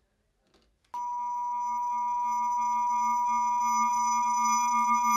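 A steady electronic tone of several pitches held together switches on abruptly about a second in and slowly swells.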